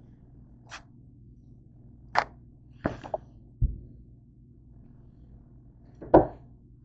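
Broom bristles striking and brushing across a hard floor in short, sharp swipes, about half a dozen in all, including a low thump about three and a half seconds in; the loudest swipe comes about six seconds in.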